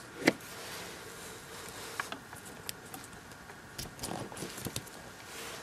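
Scattered small plastic clicks and taps as a mini RC crawler's battery connector is handled and plugged in, over a faint steady hum.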